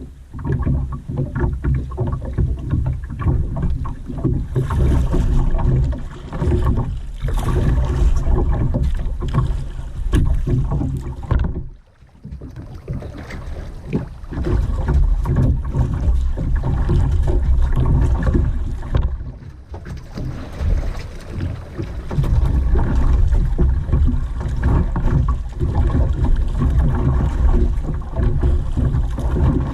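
Waves washing against rocks under heavy wind rumble on the microphone. The sound drops away briefly about twelve seconds in.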